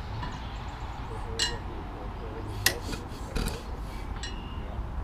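A few sharp metallic clinks and knocks, about a second apart, as an antique stationary engine with flywheels is handled on its wheeled cart on a wooden trailer deck. The engine is not running.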